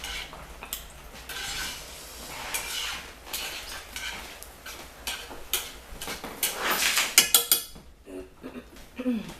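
Utensils clinking and scraping against a bowl of ramyon noodles. There is a quick flurry of clicks a little over seven seconds in.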